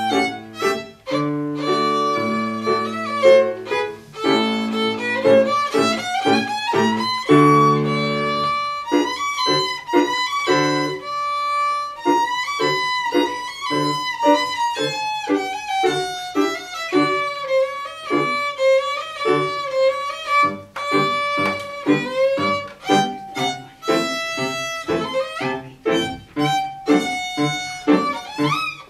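Solo violin played with the bow, a melody of mostly short separated notes with some held ones. Grand piano accompaniment sounds lower notes beneath it for roughly the first eight seconds, then drops back.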